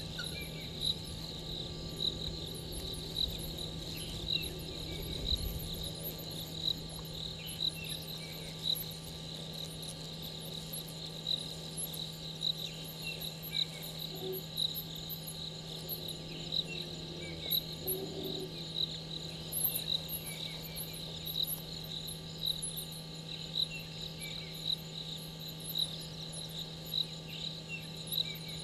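Night insect chorus: a cricket chirping in an even rhythm about once a second, with many fainter, higher-pitched insect calls over it. A steady low hum runs underneath.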